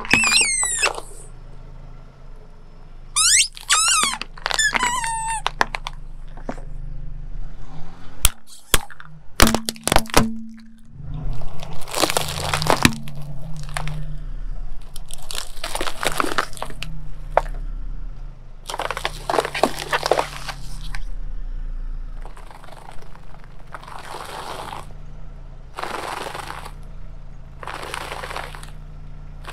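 A car tyre rolling over and crushing wrapped objects on concrete. High squeaks glide up and down near the start and again a few seconds in, then come several sharp cracks, then a string of crinkling, crunching bursts every couple of seconds. Under it all is a steady low hum.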